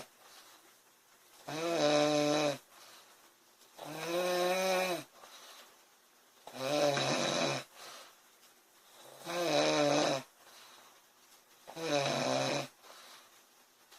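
A sleeping woman snoring: five snores, each about a second long, coming about every two and a half seconds, with quiet in-between.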